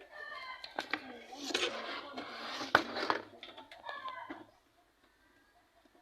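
Indistinct voices in a small room, with a few sharp clicks among them, the strongest about three seconds in; then near quiet for the last second and a half.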